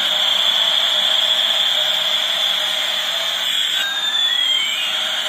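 Battery-powered toy A380 airliner playing its electronic jet-engine sound through a small speaker: a steady hissing whoosh with a high whistle-like tone on top. About four seconds in, two pitch glides, one falling and one rising, slide towards each other.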